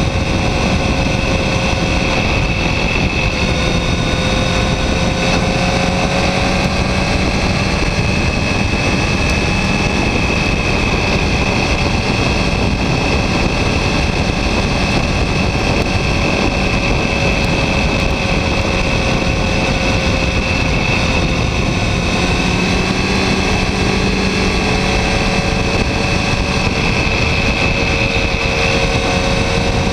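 Yamaha R1 inline-four sport bike engine running on the move, its pitch drifting gently up and down rather than revving hard, under a steady rush of wind and road noise.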